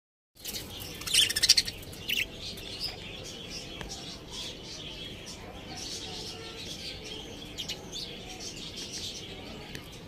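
Budgerigars chirping and chattering: a few loud, high-pitched chirps about a second in, then steady busy chatter.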